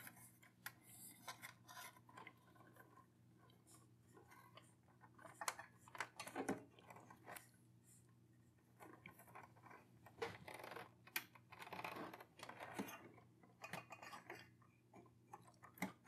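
Faint scattered clicks and small handling noises of stiff power wires being wrapped by hand onto their connection points, over a low steady hum.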